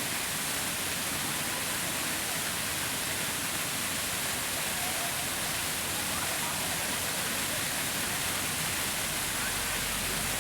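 Fountain water falling and splashing steadily into its basin, an even rushing with no breaks.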